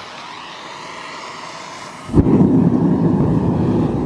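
A handheld gas torch hissing steadily as it is held to a gas forge's burner. About two seconds in the forge burner lights with a sudden thump and runs on with a loud, steady low rush.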